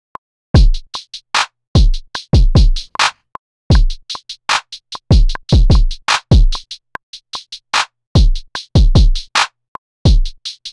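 Chopped drum-loop samples played live from a keyboard through Logic Pro X's sampler: deep kick hits, hi-hats and claps in a new pattern over a metronome click at 150 BPM, starting about half a second in after a few count-in clicks. The playing is a little off the beat and not yet quantized.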